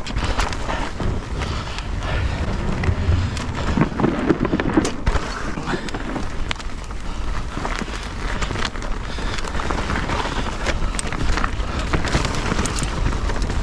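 Mountain bike riding down a dirt trail: tyres rolling over rough ground and the bike rattling, with frequent clicks and knocks, over a steady low rumble of wind on the camera's microphone.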